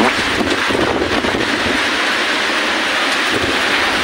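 Heavy rain and wind of a hailstorm, a steady loud hiss.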